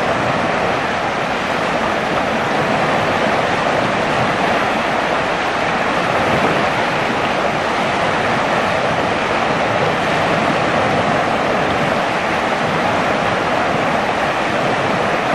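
Steady rushing of a fast-flowing, flood-swollen river.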